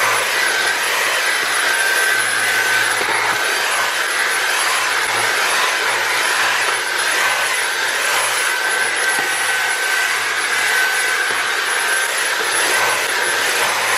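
Dyson V8 Absolute cordless stick vacuum running on its maximum setting with the small roller attachment, cleaning car floor carpet. The sound is a steady high whine over a rushing hiss.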